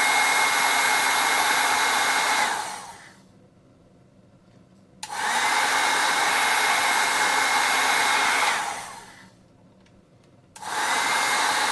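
Hot-air heat gun blowing in three bursts, shrinking heat-shrink tubing over solder joints. Each time it is switched off its fan winds down with a falling whine, and it stays off for about two seconds before it is switched on again.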